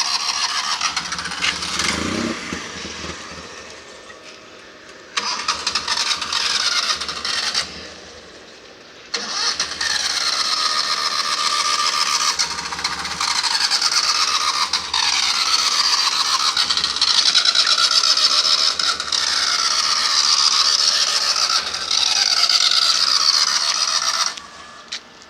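A race car's engine is cranked by its starter in several attempts without catching: a short try at the start, another of about two seconds, then a long crank of about fifteen seconds. The engine won't start.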